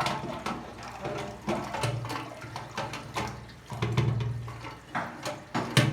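Water running inside a concealed toilet cistern, with irregular clicks and knocks of plastic cistern parts being handled.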